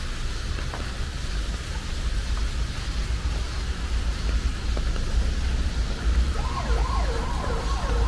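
Steady low rumble and hiss of traffic. About six seconds in, an emergency vehicle siren starts up with quick, repeating sweeps, about two a second.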